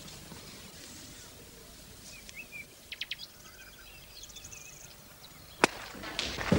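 Birds chirping a few times over quiet outdoor background noise, then a single sharp crack near the end: a hurley striking a sliotar.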